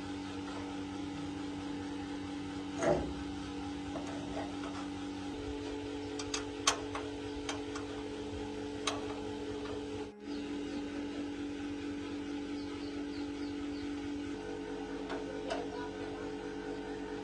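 A steady low electrical hum with a few light clicks and taps scattered through it, and one louder knock about three seconds in.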